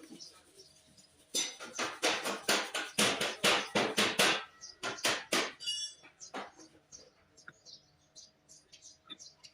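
A quick run of hard metallic clinks and knocks, roughly four a second for about four seconds, then a few scattered faint ticks.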